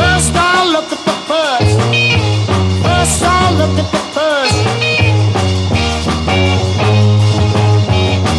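A 1960s British R&B beat-group record playing loud, with bass guitar, drums and sliding voice lines over a steady groove, briefly dropping back twice.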